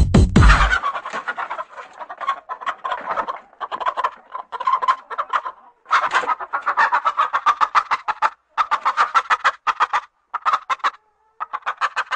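A chicken clucking in quick runs of rapid, sharp clucks, several runs separated by short pauses. Electronic music with a beat cuts off a little under a second in.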